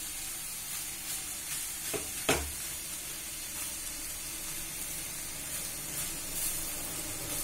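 Diced ridge gourd sizzling in oil in a clay pot while a silicone spatula stirs it: a steady hiss with one sharp knock about two seconds in.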